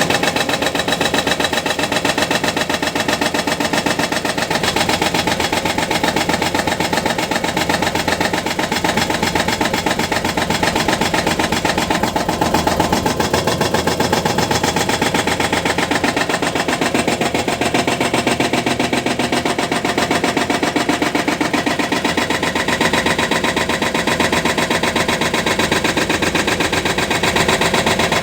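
Hyundai excavator's diesel engine running steadily, with an even, rapid pulsing.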